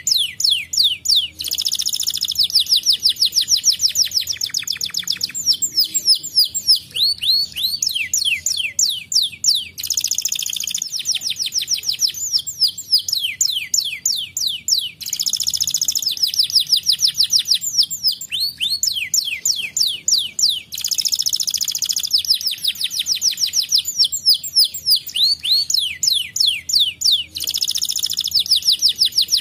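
Domestic canary singing continuously: rapid high trills and quick down-sweeping notes, broken every few seconds by a denser, faster trilled roll.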